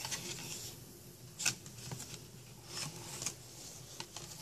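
Thick card flaps and pages of a children's lift-the-flap board book being handled and turned: a few short papery rustles and scrapes, the sharpest about a second and a half in, more around three seconds in, and a small click near the end.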